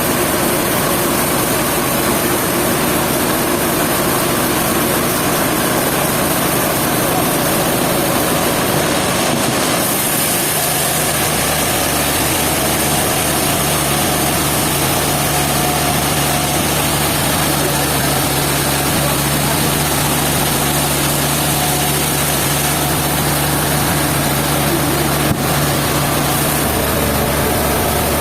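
Sawmill machinery running steadily with a continuous mechanical noise; about ten seconds in, a lower steady hum joins and holds.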